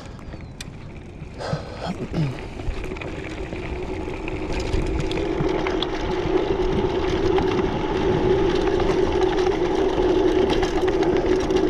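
Mountain bike rolling fast down a dry dirt trail: a steady humming buzz from the spinning wheels that grows louder as the bike picks up speed, with scattered small clicks from the trail surface.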